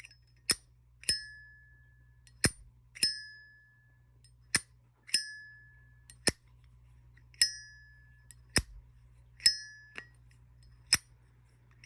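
Zippo lighter lid flicked open and snapped shut about five times in a steady rhythm. Each opening gives a sharp click followed by a bright metallic ring lasting about a second, and each closing gives a short click. The lighter has gone weeks without maintenance, yet its ring is, surprisingly, a good sound.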